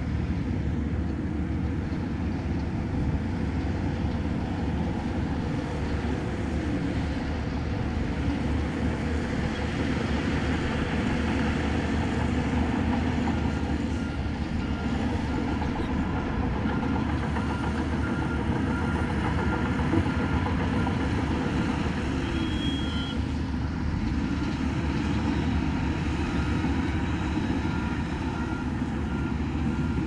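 Heavy diesel construction machinery engines running steadily under load, as dump trucks and earthmoving machines work rock and dirt. A faint repeating beep, like a reversing alarm, comes in partway through and again near the end.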